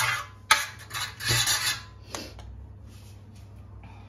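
Butter being rubbed over a baking tin to grease it: a few scraping, rasping strokes that stop a little over two seconds in.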